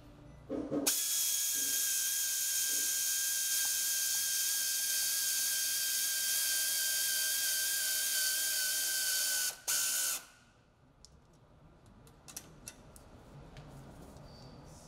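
Cordless ratchet running steadily for about nine seconds, its motor whine dropping slightly in pitch as it drives a T-bolt hose clamp down on a boost-tube hose. A short final blip of the motor follows, then a few light clicks.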